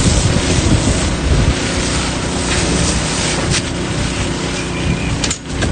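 Wind buffeting the microphone over a steadily running engine, with a brief dropout near the end.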